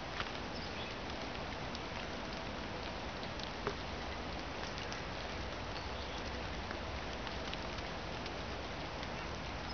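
Steady, even background hiss of winter woodland ambience, with a couple of faint soft ticks.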